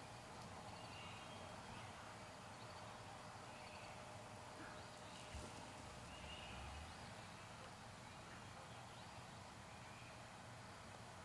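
Near-silent field ambience with a few short, faint bird calls scattered through it, and one soft low thump about halfway through.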